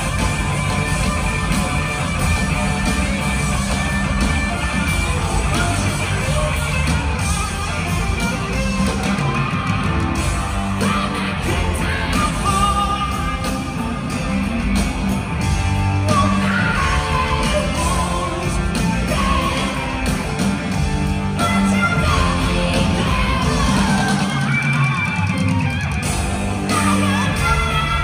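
Live rock band playing loud: electric guitar, bass and drums with a male voice singing, heard from far back in the hall.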